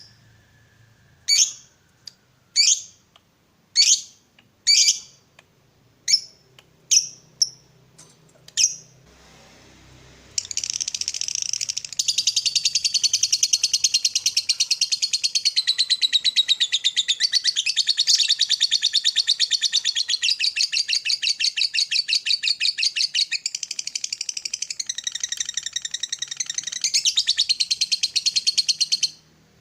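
Lovebird calling: about seven separate shrill calls spread over the first nine seconds, then a long, very fast rattling chatter (the 'ngekek' song) lasting nearly twenty seconds and cutting off suddenly near the end.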